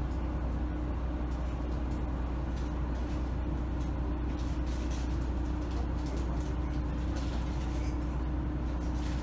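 Diesel railcar's engine running steadily, heard inside the passenger cabin as an even low drone with a constant hum over it.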